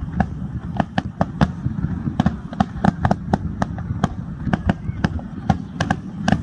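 Aerial fireworks going off: rapid, irregular sharp cracks, several a second, over a continuous low rumble of booms.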